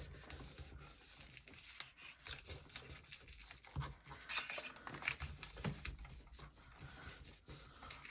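Sheet of paper rustling and rubbing under the hands as it is pressed down over a glued card tag and shifted about, with small crackles of paper on paper.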